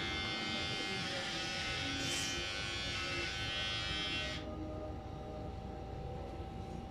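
Electric hair clippers running steadily during a haircut, a constant buzzing hum. About four and a half seconds in, the brighter, higher part of the buzz drops away and only the lower hum carries on.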